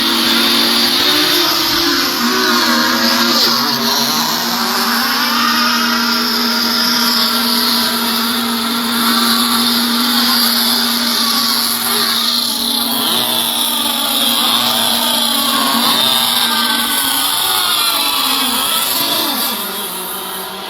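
Several nitro-engined RC racing boats running flat out together, their high-pitched engine notes rising and falling and overlapping as the boats go around the course.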